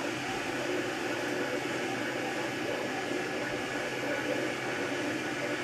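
MakerBot Replicator 2 3D printer running a print: its stepper motors whir in shifting tones as the extruder head travels, over the steady hiss of the extruder's cooling fan.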